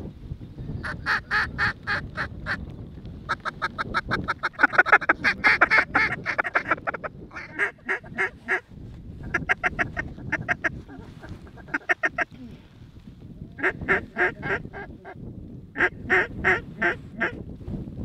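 Duck quacking in rapid runs of evenly spaced quacks, repeated again and again with short gaps; the longest and loudest run comes about four to seven seconds in.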